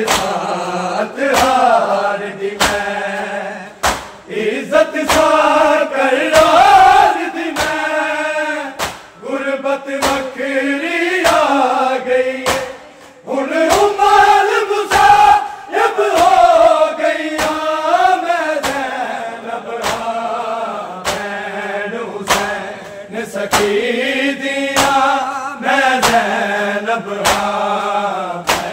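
Men singing a Punjabi noha (Shia mourning lament) in loud chorus, with held, gliding notes, over a steady beat of bare-handed chest-beating (matam) from the crowd, about three strikes every two seconds.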